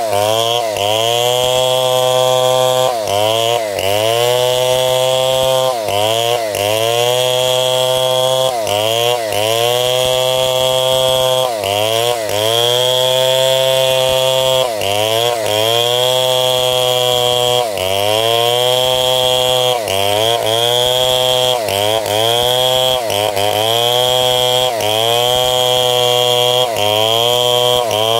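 A powered wood-sawing machine running hard while cutting timber. Every few seconds its pitch drops sharply and climbs back, often twice in quick succession, as the blade takes the load of the cut.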